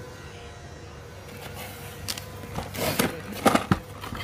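Packaging being handled: rustling, scraping and a few sharp knocks from about halfway through as a small cardboard box is worked out from between foam packing inserts in a carton. A faint steady hum underlies it.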